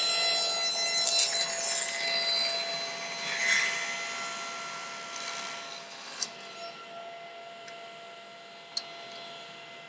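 Table saw with a crosscut sled cutting a strip off a glued-up hardwood board. The spinning blade gives a steady whine, and the cutting noise is loudest in the first few seconds, then fades. Two sharp clicks come near the end.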